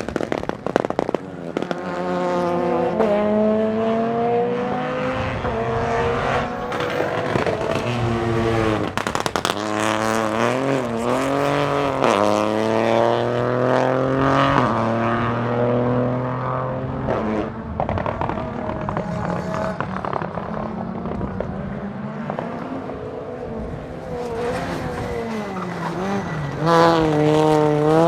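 Peugeot 208 Rally4's 1.2-litre turbocharged three-cylinder engine revving hard, its pitch climbing and dropping again and again through the gears, with sharp crackles and pops from the exhaust as the throttle comes off.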